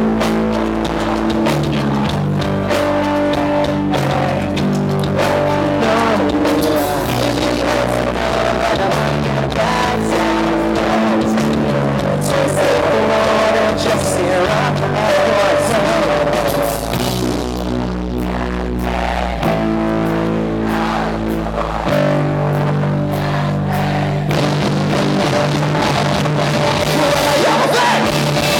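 Pop-punk band playing live: electric guitars, bass and drums, with sung vocals.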